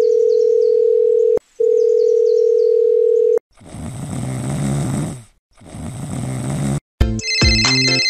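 Phone ringback tone: two long steady beeps, followed by a mobile phone vibrating in two buzzes. About seven seconds in, an electronic ringtone melody starts.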